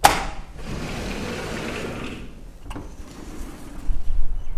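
A sliding door being opened: a click, then about two seconds of it running along its track, and a second click just under three seconds in. Wind buffets the microphone near the end.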